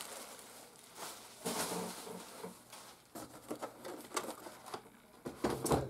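Packaging being handled: a cardboard box and plastic-wrapped parts lifted and shifted in a shipping box, with irregular light scuffs, taps and rustles, and a louder knock just before the end.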